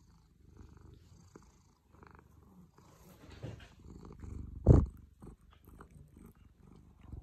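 Domestic cat purring close to the microphone, low and quiet, with one loud brushing thump about four and a half seconds in as the cat rubs its face against the phone.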